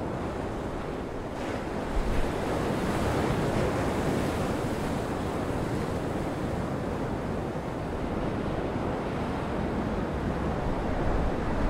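Heavy surf breaking and washing over rocks in a gale, a steady roar of churning water, with wind buffeting the microphone in low rumbles.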